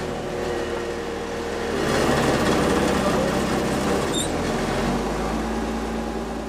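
Diesel engine of a Komatsu PC220LC tracked excavator running steadily. It gets louder about two seconds in and shifts to a different steady note about five seconds in.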